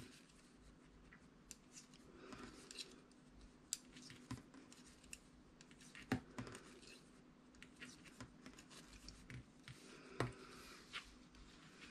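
Knitting needles faintly clicking and tapping against each other, with soft yarn rustling, as stitches are knitted one after another; the sharpest ticks come about six and ten seconds in.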